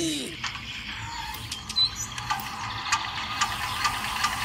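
Miniature walking-tractor model being hand-cranked to start: a steady hiss with scattered light clicks that come more often in the second half.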